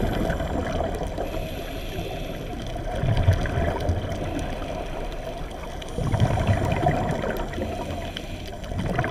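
Underwater bubbling and gurgling from a scuba diver's exhaled breath through the regulator, coming in surges about every three seconds over a steady underwater hiss.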